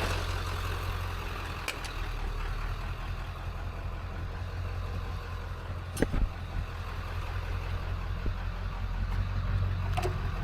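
A vehicle engine idling steadily, with a single sharp knock about six seconds in.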